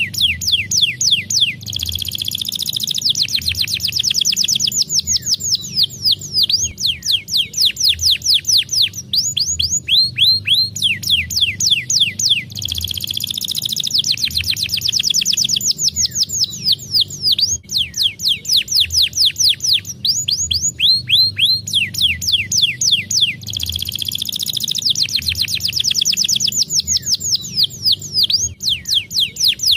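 Domestic canary singing: long rapid trills of quick falling whistled notes, run together in phrases. The same sequence of phrases comes round about every eleven seconds.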